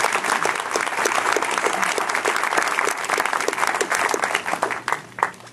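Audience applauding, dense clapping that thins out to a few lone claps near the end.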